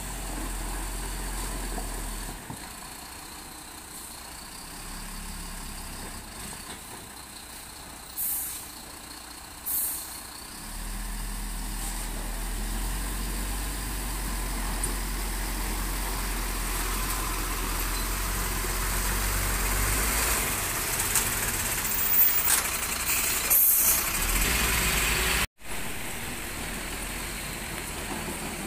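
Diesel engine of a loaded BharatBenz tipper truck running as it creeps along, growing louder as it comes closer. Two short air-brake hisses about 8 and 10 seconds in.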